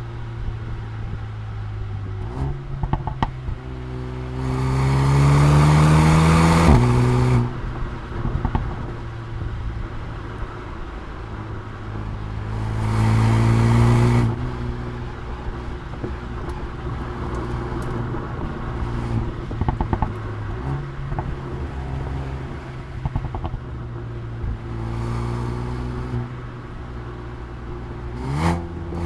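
Mercedes-AMG A35's turbocharged four-cylinder engine and exhaust under spirited driving. The revs climb hard about four seconds in and again about twelve seconds in, each run cut off abruptly at a gearshift or lift, and they start climbing again near the end. In between is steadier running at lower revs, with a few sharp exhaust crackles on the overrun.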